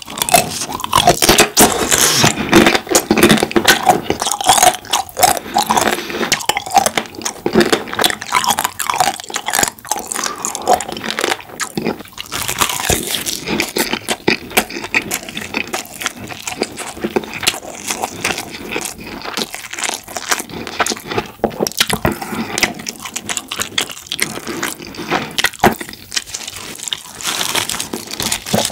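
Close-miked eating of spicy marinated crab (yangnyeom gejang): continuous wet chewing and crunching of crab shell, full of sharp clicks, louder in the first half.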